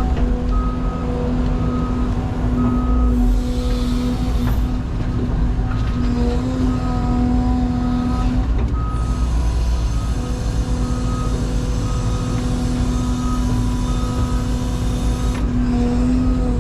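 CAT 323 excavator's diesel engine and hydraulics running steadily under load, with a backup alarm beeping at an even pace, a little more than once a second.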